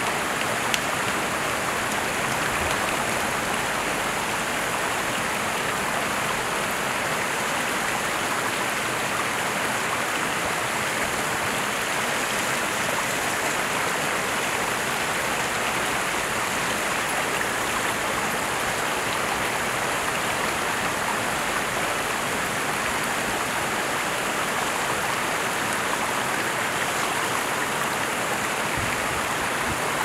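Small waterfall pouring over rocks into a stream: a steady, even rushing of water. One short knock about a second in.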